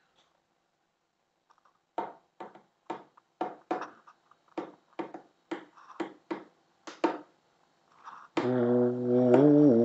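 A run of about a dozen sharp snaps or taps, two or three a second, probably from a hand. Shortly before the end, loud music with a low, horn-like sustained note comes in and holds, wavering slightly in pitch.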